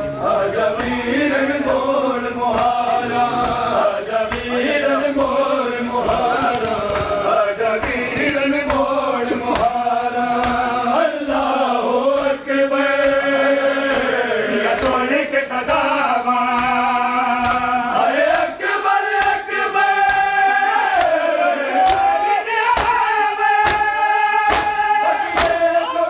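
Men's voices chanting a nauha, a Shia mourning lament, as a melodic group recitation. It is accompanied by rhythmic slaps of hands on bare chests (matam), which grow sharper near the end.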